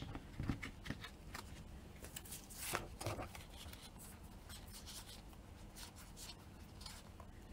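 Faint rustling and soft taps of trading cards being handled, a few short strokes in the first few seconds, over a faint steady hum.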